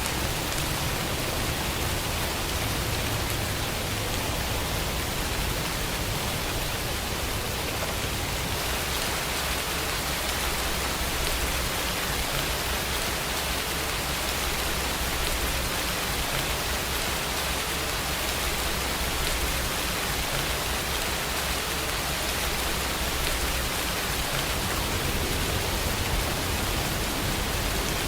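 Steady rain falling, an even hiss with no pauses, over a low continuous rumble.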